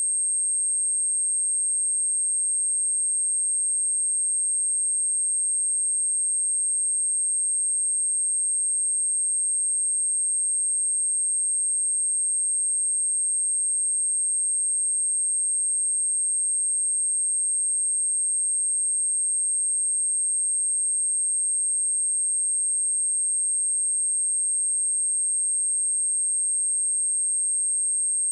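A steady, unbroken, high-pitched pure sine-wave test tone at 8453 Hz.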